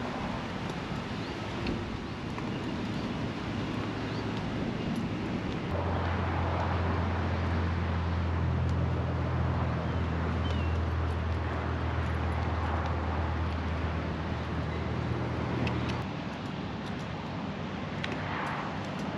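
A motor running at a steady low pitch over outdoor background noise, louder from about six seconds in until about sixteen seconds.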